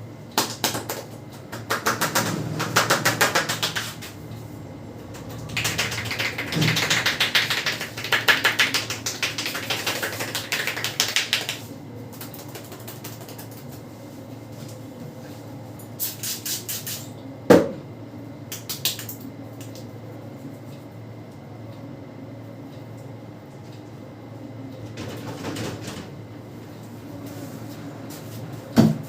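Rapid hand tapping on a person's head during a barber's head massage: two long runs of fast, even taps, then a few shorter runs, with one sharp crack a little past halfway.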